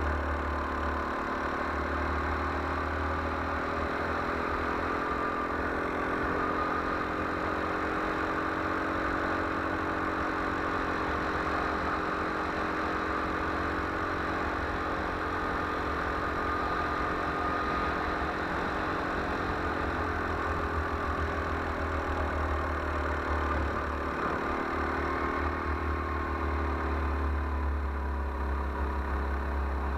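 A go-kart's small engine runs continuously at speed, its pitch rising and falling gently as the kart works through the corners. It is heard from a camera mounted on the kart, with a steady low rumble underneath.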